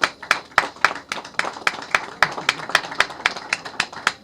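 Applause: hands clapping in a steady rhythm, about four sharp claps a second.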